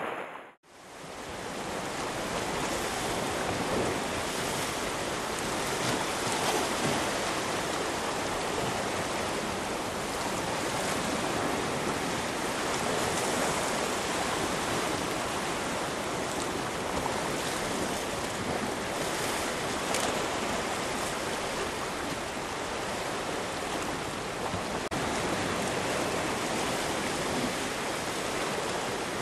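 Sea waves washing against shore rocks, with wind: a steady, even rush of surf that fades back in after a brief drop at the start.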